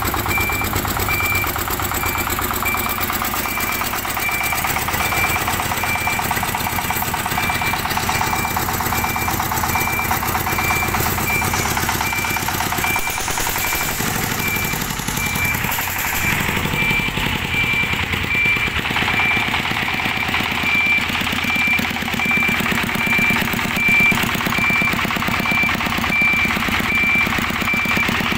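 Single-cylinder horizontal diesel engine of a two-wheel-tractor dump truck running with rapid, even exhaust beats. Over it an electronic beeper sounds about twice a second.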